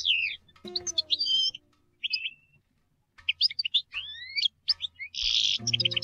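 European goldfinch singing quick twittering chirps and trills, with a short silent pause in the middle and a brief buzzy note near the end. Plucked oud notes ring about a second in and again just before the end.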